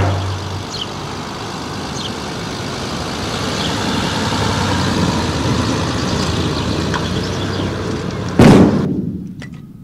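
A 1950s Mercedes-Benz Ponton saloon driving off over cobblestones: a rumble of engine and tyres on the stones that swells as the car nears and passes, then a sudden loud rush near the end before the sound falls away.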